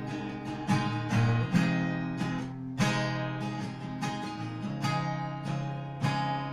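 Acoustic guitar strumming chords in a steady rhythm, an instrumental passage of a Mexican romantic song with no singing.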